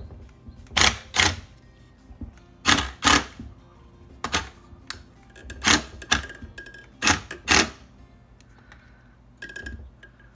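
Sharp knocks, mostly in pairs about half a second apart, nine in all, from tapping the new cylinder sleeves down into the housing of a Thomas aerator pump. A few lighter clicks follow near the end.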